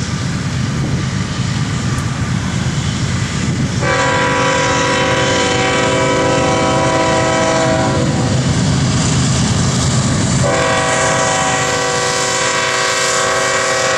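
CN freight train's diesel locomotives rumbling as they approach, with the lead locomotive's multi-chime air horn sounding two long blasts, one starting about four seconds in and the next about ten and a half seconds in. This is the opening of a grade-crossing warning.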